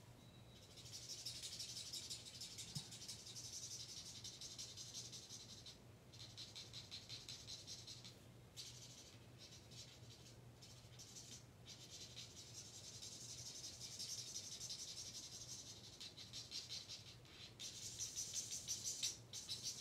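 Colorless blender marker's felt nib rubbing on cardstock in quick short strokes, blending out the edges of alcohol-marker colouring: a faint scratchy rasp that comes and goes, over a steady low hum.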